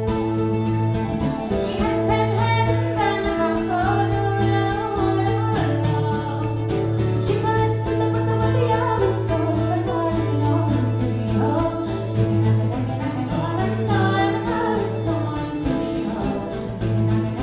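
Irish traditional folk band playing live: plucked strings and a moving melody over a steady low drone.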